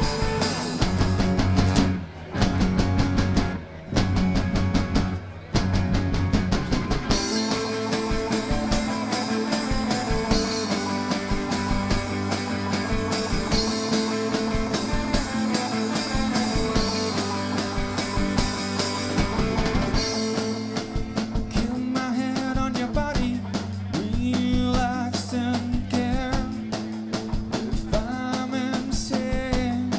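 Live rock band playing with drum kit and electric guitar. The band drops out briefly twice in the first few seconds, then plays on steadily, and about two-thirds of the way in a man starts singing over it.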